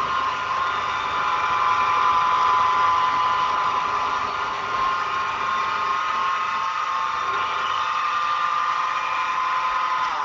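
Milling machine spindle running steadily with a high whine as a small end mill cuts into an aluminium part. Right at the end the whine bends down in pitch and dies away as the spindle stops.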